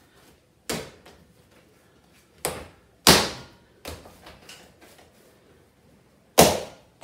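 Lumps of bread dough slapped and thumped down onto a stone benchtop as they are kneaded and shaped by hand: five separate dull thuds, the loudest about three seconds in and near the end.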